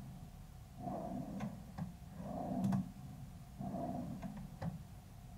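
Wooden dresser drawer sliding in and out on newly fitted under-mount metal drawer slides: three short rolling runs, with sharp clicks and knocks as it reaches its stops. It runs smoothly.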